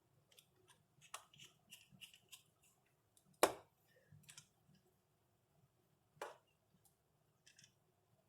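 Light clicks and taps of hands working on a laptop's screen assembly, with a sharper knock about three and a half seconds in and another near six seconds.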